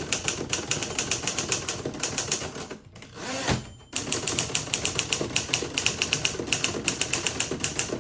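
Typewriter being typed on quickly, a steady run of sharp key clacks about five or six a second. About three seconds in the typing stops for a moment and one louder sliding sound, a carriage return, is heard before the typing carries on.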